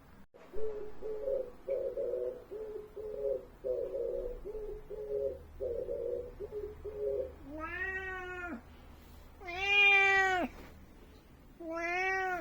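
Cat vocalising: a stretch of short, low, rhythmic calls, then three loud meows of about a second each, each rising then falling in pitch.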